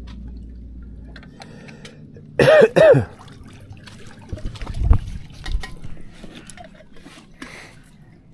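A person coughing twice in quick succession, loud, about two and a half seconds in, followed by scattered faint knocks and rustles.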